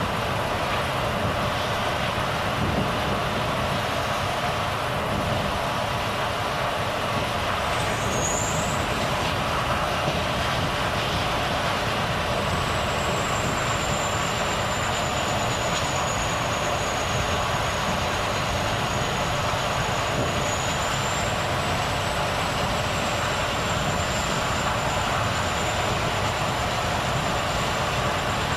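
Volvo FH truck driving along, its engine and road noise running steadily. A faint high whistle comes in a little before halfway and holds.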